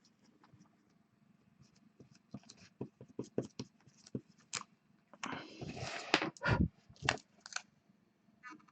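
Handling of cards and packaging on a desk: scattered light clicks and taps, then about a second and a half of scraping and rustling with a few sharper knocks, and a few more clicks near the end.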